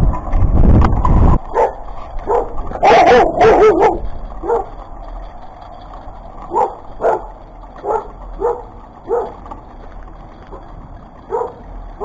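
A dog barking repeatedly: a quick run of barks about three seconds in, then single barks about every half second, pausing briefly near the end. Wind buffets the microphone for the first second or so.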